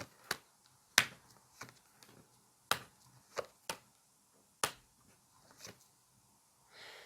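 A series of short, sharp clicks at irregular intervals, about nine in all, the loudest about a second in.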